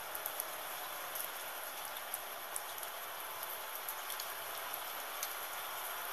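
Gentle steady rain: an even hiss with individual drops ticking sharply here and there, no thunder.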